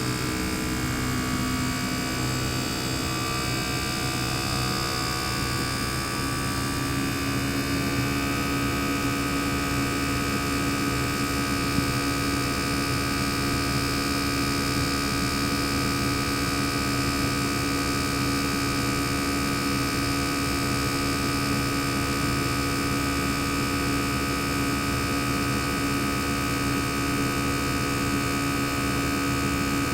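Panasonic CU-227CF air conditioner's single-rotary inverter compressor running with its sound-deadening partly open, a steady hum made of several tones. The tones shift in pitch for the first several seconds, then hold steady.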